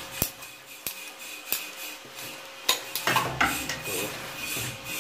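Ratcheting PVC pipe cutter working through PVC conduit, its ratchet giving a sharp click roughly every two-thirds of a second as the handles are squeezed, then a busier patch of clicking and rattling about three seconds in.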